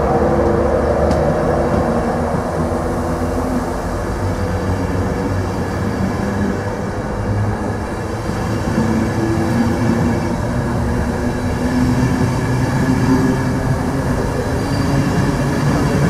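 East Coast express passenger train's coaches rolling slowly past the platform, a steady rumble of wheels on rail with a low hum.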